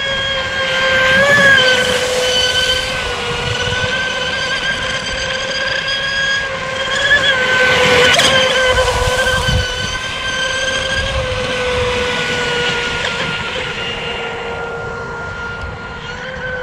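ProBoat SonicWake 36-inch RC boat's brushless motor and three-blade 40 mm prop running at speed: a steady high whine that wavers slightly in pitch, loudest about a second and a half in and again around eight seconds, over a rough low rushing noise.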